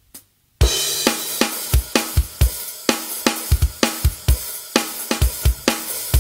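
Live worship band coming in about half a second in with a cymbal crash, then a drum kit beat of bass drum, snare and hi-hat hits over sustained keyboard and bass chords.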